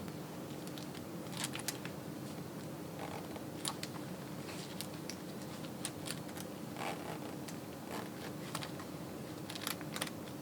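Faint scattered clicks and rustling as a shiny patent knee-high boot is put on and fastened by hand, its metal buckles and side zipper being worked.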